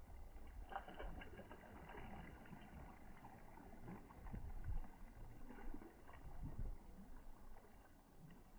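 Faint lakeshore ambience: small waves lapping against the rocks, with a low rumble of light wind on the microphone.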